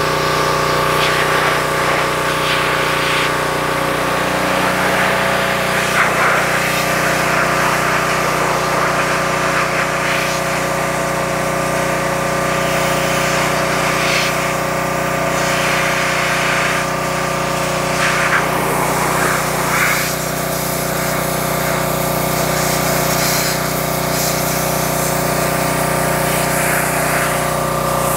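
Pressure washer running steadily, its high-pressure water jet hissing against a transmission case; the spray noise swells and fades as the jet sweeps across the casing over a constant machine hum.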